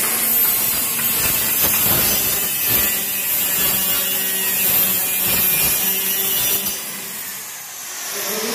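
Small electric circular saw running and cutting through a wooden plank. About seven seconds in it is switched off and winds down with a falling whine.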